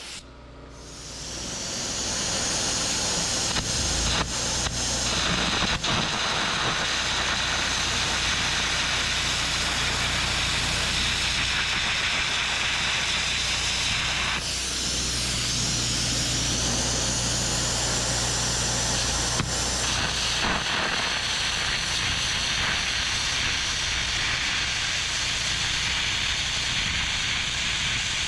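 Air carbon arc gouging on a steel truck axle housing: a loud, steady hiss and crackle of the arc and its compressed-air jet blasting molten metal out, over a low steady hum. The gouging cuts away the welds of an old spring perch so it can be removed, and it starts up about a second in.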